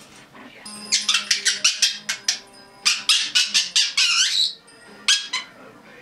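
Red-bellied parrot calling: two quick runs of sharp, high-pitched call notes, then a wavering warble about four seconds in and a last call or two near the end.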